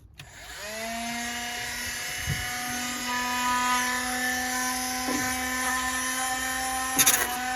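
Dremel rotary tool with a cut-off wheel spinning up about half a second in, then running with a steady high whine as it cuts off a leaking metal fuel pipe. There is a short clatter about seven seconds in.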